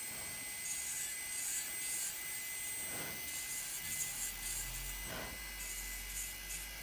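Electric nail drill (e-file) running with a steady high whine while a small bit works around the base of a fingernail, rubbing the cuticle loose from the nail plate, the bit spinning in reverse after a change of rotation direction.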